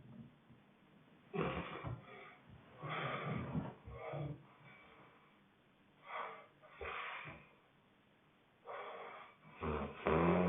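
Honking snoring: a sleeper's breaths come as loud snorts and wheezes in three clusters, a few seconds apart, with quiet pauses between. The loudest snort comes near the end.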